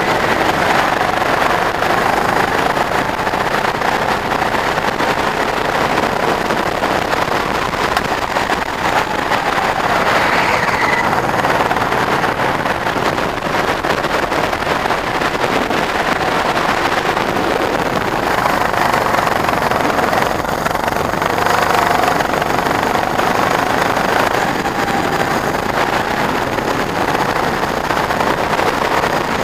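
Go-kart engine running at speed on track, its pitch rising and falling as the kart accelerates and eases off through the corners, under heavy wind noise on the onboard microphone.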